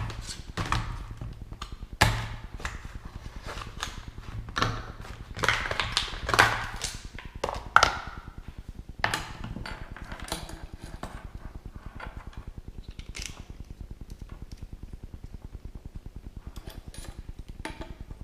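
Small LED lights and their packaging being handled and unpacked by hand: irregular rustling, clicks and knocks, busiest in the first half, over a steady low pulsing hum.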